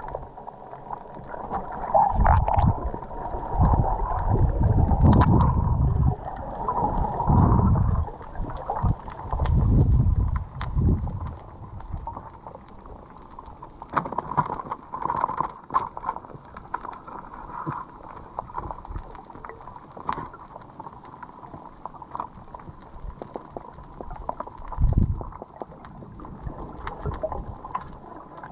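Muffled underwater sound from a camera in its waterproof housing: water rushing and gurgling around it in irregular low surges over roughly the first ten seconds, then a softer wash with one more surge near the end. Faint scattered clicks run through it.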